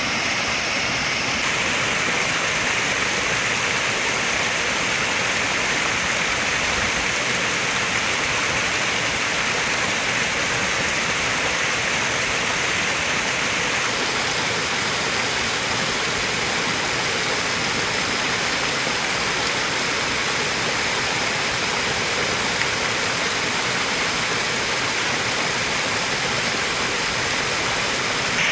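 Water pouring down a stepped stone waterfall and splashing into a pond: a steady rushing sound that doesn't let up.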